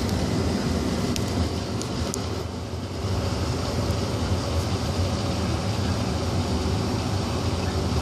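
1995 Tempstar SP80 gas furnace running steadily, with the gas burners lit and the draft inducer and blower fans on: an even hum with a rush of air.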